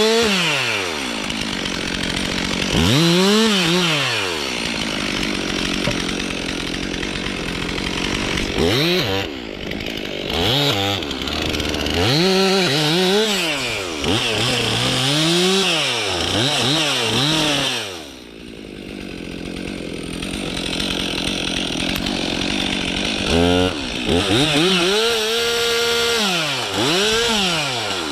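Stihl MS 362 C two-stroke chainsaw cutting birch, its engine pitch rising and falling again and again as the throttle is worked and the chain bites into the wood. About eighteen seconds in, it briefly drops quieter before running up again.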